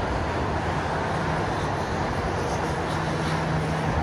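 Steady wash of distant city road traffic heard from high above, with a faint steady engine hum joining about half a second in and growing stronger near the end.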